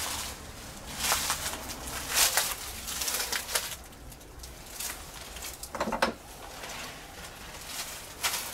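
Footsteps and rustling through dry bamboo leaves and brush, in irregular scrapes and crunches. There is one short, lower knock or creak just before the middle.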